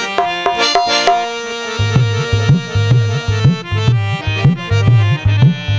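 Instrumental passage of harmonium and hand drum: the harmonium holds steady reed chords, and about two seconds in the drum comes in with bass strokes, roughly three a second, each bending upward in pitch.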